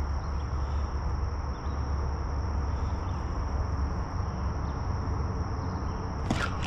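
Steady, high-pitched drone of insects in the waterside vegetation over a low rumble. A short burst of sharp clicks comes near the end.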